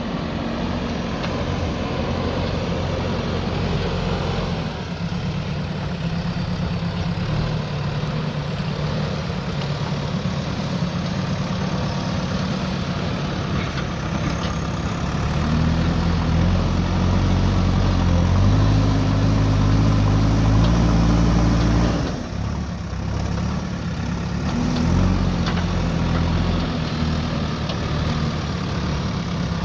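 JCB backhoe loader's diesel engine running, revving up about halfway through, dropping back suddenly a little later, then rising briefly again.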